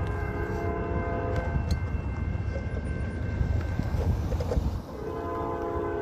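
Distant Norfolk Southern freight locomotive's multi-chime air horn sounding a chord as the train approaches the crossing. One blast is faint in the first part, and a stronger long blast starts near the end, over a low rumble that drops away just before it.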